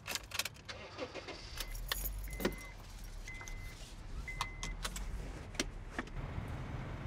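Car keys jangling and clicking, with four short electronic chime beeps from the car. A low engine hum comes in and runs steadier near the end as the car's engine starts and idles.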